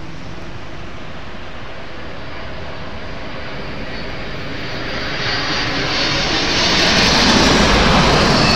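Jet engines of a Cathay Pacific Cargo Boeing 747 freighter on final approach to land, passing low overhead. The engine noise swells from about four seconds in and is loudest near the end, a heavy rush with a thin high whine.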